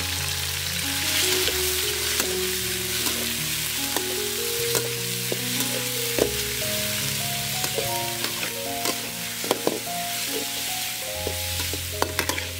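Raw chicken pieces sizzling in hot oil in a steel wok. A metal spatula scrapes and clinks against the wok as they are stir-fried, and the clinks come more often in the second half.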